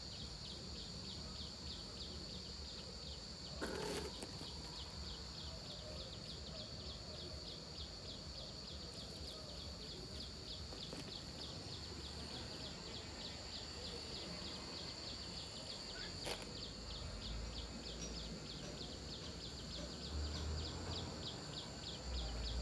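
Insects chirring steadily in a high-pitched, evenly pulsing drone. There are two faint clicks, about four and sixteen seconds in, and a low rumble near the end.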